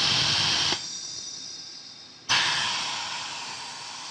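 Compressed air hissing at a pneumatic foot valve that drives a hydro-pneumatic pressure intensifier closing a rivet squeezer's jaws. A loud burst of hiss comes as the valve is pressed and drops off in under a second. About two seconds in a second sudden hiss follows and fades slowly as the air is let out.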